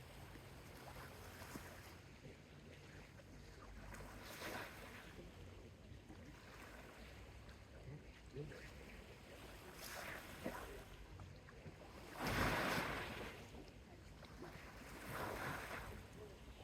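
Small, gentle sea waves washing onto a beach: a soft hiss that swells and fades every few seconds, with a larger wave breaking about twelve seconds in. A low steady rumble of surf lies underneath.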